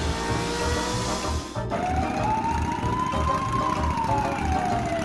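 Police siren wailing: one slow rise and fall in pitch starting about two seconds in, after a steadier tone, over background music with a steady beat.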